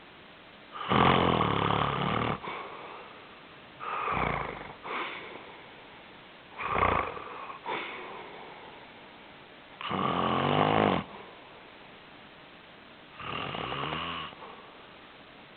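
Loud snoring: five snores about three seconds apart, each lasting around a second, some followed by a shorter second breath.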